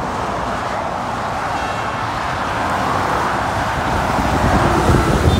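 Steady dual-carriageway traffic: tyres and engines of cars and lorries passing below, with a low rumble swelling near the end as a large lorry passes close beneath.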